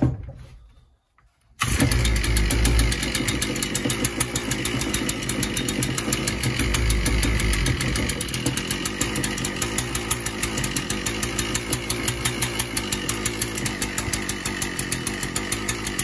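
Shindaiwa M242 two-stroke trimmer engine catching suddenly about a second and a half in, then running steadily with rapid, even firing. It is running on a newly replaced ignition coil, which has fixed the machine.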